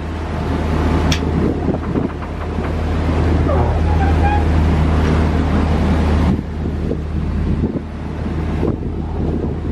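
Sailboat's engine running steadily as a low hum, under wind buffeting the microphone and rough water rushing along the hull. The wind noise eases a little after about six seconds.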